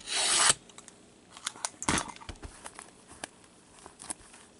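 A Craftsman box cutter slitting the cellophane wrap of a trading-card box in one quick stroke at the start. After it come a sharper tap about two seconds in and light scattered clicks and rustles of the box and wrapper being handled.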